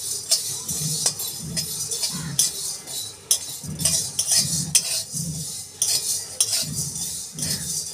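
A spatula stirring and scraping whole spices, coriander seeds and black peppercorns, as they dry-roast in a pan with no oil. The stirring is rhythmic, at about two strokes a second.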